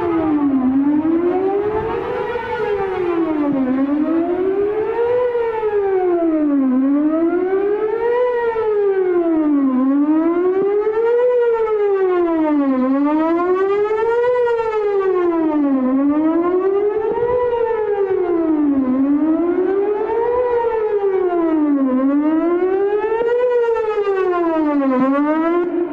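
Emergency warning siren sounding a test in a wail, its pitch rising and falling about every three seconds. It stops near the end.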